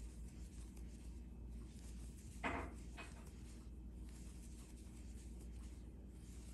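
Faint scratching and rubbing of yarn pulled through stitches on a plastic crochet hook as double crochets are worked, over a low steady hum. One brief, slightly louder soft sound comes about two and a half seconds in.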